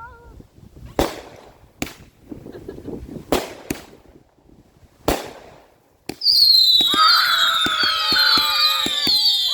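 Fireworks: a few separate sharp bangs, then from about six seconds in a loud chorus of many whistling fireworks, their whistles slowly falling in pitch, with crackling pops among them.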